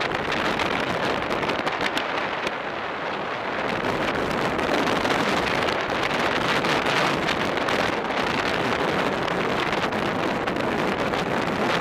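Wind rushing over the microphone of a camera riding on a racing bicycle at speed: a steady, dense rush that swells slightly partway through.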